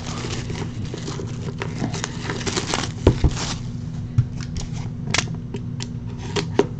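Plastic shrink wrap being torn and peeled off a cardboard trading-card box: a run of crinkling crackles and rustles, with a couple of sharper knocks about three seconds in as the box is handled.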